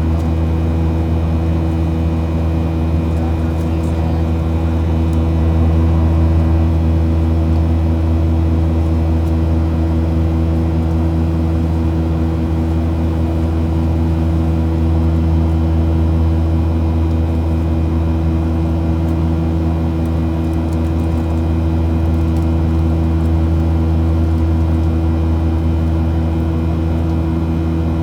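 Aircraft in flight, heard from aboard: the engines drone steadily as a low hum with a few steady higher tones over it, swelling slightly now and then.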